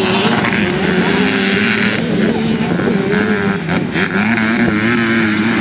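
Several Super Mini motocross dirt bikes racing, their engines revving, with the pitch rising and falling as the riders work the throttle.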